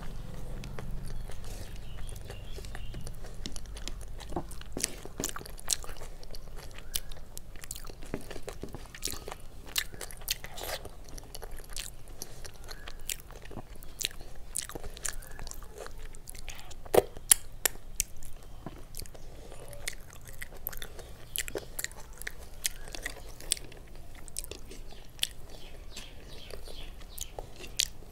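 Close-miked chewing of rice mixed with dal, eaten by hand: wet mouth clicks and smacks, with fingers squishing through the rice on the plate. A few louder clicks come a little past the middle.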